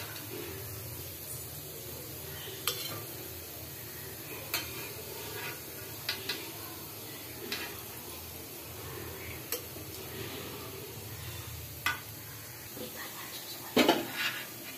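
Oil sizzling steadily as paakundalu deep-fry in a metal pan. A slotted steel ladle clinks against the pan every second or two as the balls are turned and lifted out, with a louder clatter near the end.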